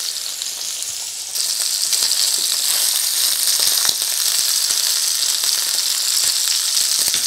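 Marinated beef roast searing in hot lard in a stainless steel pan: a steady, high sizzle that jumps louder about a second and a half in. A few light knocks come as the meat is turned with wooden spatulas.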